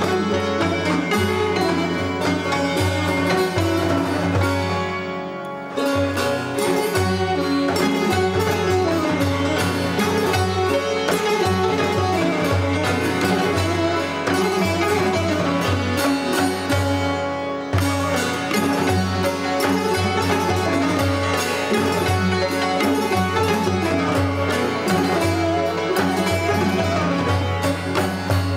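Persian traditional music played live on plucked string instruments, a busy run of notes with short breaks in the phrase about six seconds in and again near eighteen seconds.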